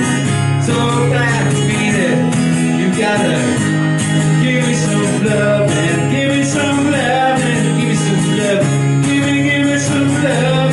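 A man singing lead vocals into a microphone while strumming an acoustic guitar in a steady rhythm, both amplified.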